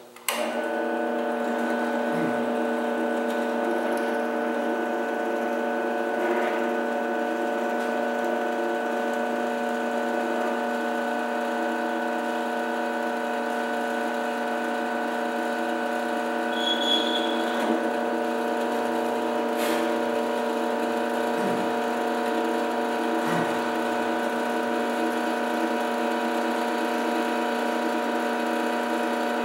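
Drill press motor switching on just after the start and running at a steady hum.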